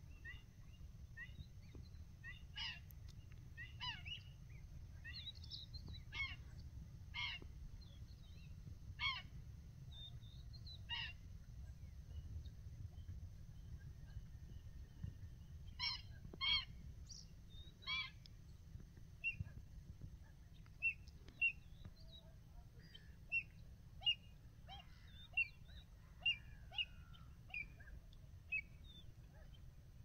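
Wading birds calling: short, sharp calls about once a second, a pause, three louder calls, then a scatter of quicker, shorter chirps. A steady low rumble runs underneath.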